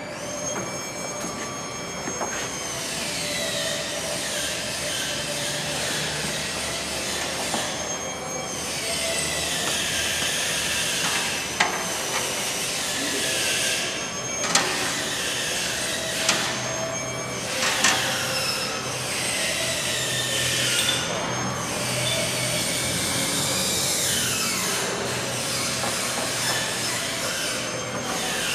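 Repeated metallic squeals, each sliding down in pitch over a second or two, over a steady hiss, with a few sharp clicks near the middle. The source is metal rubbing on metal as the knife is fitted into a guillotine paper cutter.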